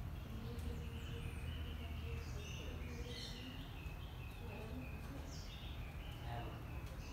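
Birds chirping, with many short high notes throughout, over a steady low rumble.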